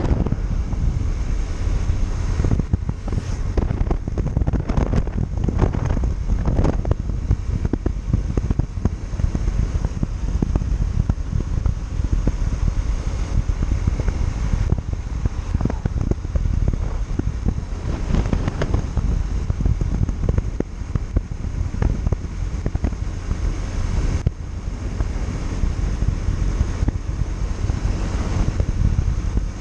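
Wind buffeting the microphone on a moving Yamaha Factor 150 motorcycle, with the single-cylinder engine and road noise running underneath.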